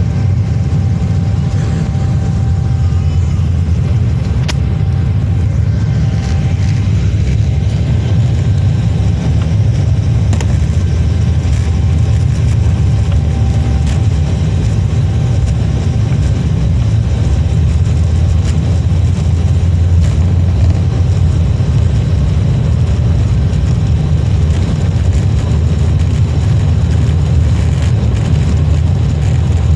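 Airliner cabin noise with the plane rolling on the ground: a loud, steady low rumble from the jet engines and the moving aircraft, with a faint steady whine and a few small clicks and rattles.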